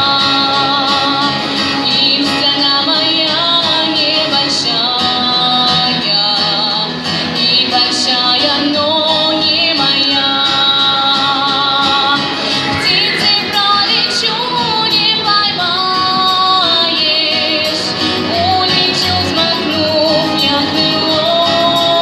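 Pop song on a backing track, with a girl's voice singing the melody.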